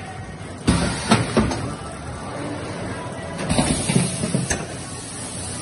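Automatic carton-board skin-pack machine running: sudden clunks and clatter about a second in, then another rattling clatter with a high hiss about three and a half seconds in.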